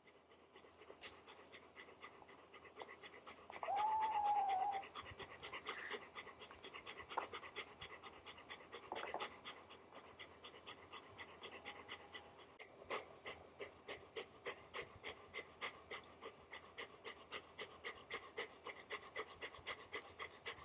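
Golden retriever panting with its tongue out, in short even breaths that settle to about three a second and grow more regular in the second half. About four seconds in, one short high call rises and falls, the loudest sound here.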